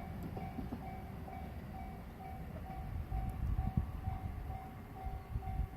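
Japanese railway level-crossing warning bell ringing in an even beat of about two strokes a second, over a low rumble.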